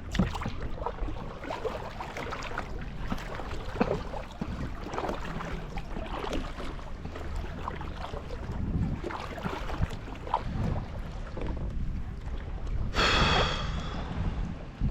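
Kayak paddling: water splashing and trickling off the paddle blades with light knocks against the hull, over steady wind rumble on the microphone. Near the end a loud pitched call lasting about a second.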